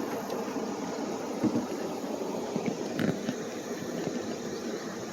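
Running river water, a steady rushing wash, with two light knocks about a second and a half and three seconds in.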